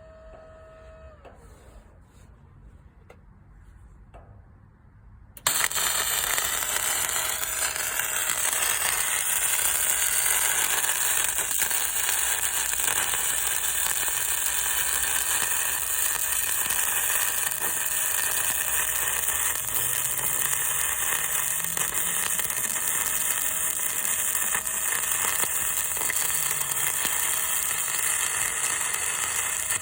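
Flux-core wire-feed welding arc from an Arc Captain MIG 250, struck suddenly after about five quiet seconds, then crackling and sizzling steadily as a bead is run.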